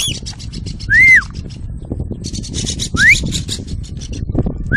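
Loud recall whistles for a free-flying pet parrot: an arched whistle that rises and falls about a second in, a quick rising whistle about three seconds in, and another arched whistle near the end. Between the whistles there is a rapid high buzzy trill, with a low wind rumble on the microphone underneath.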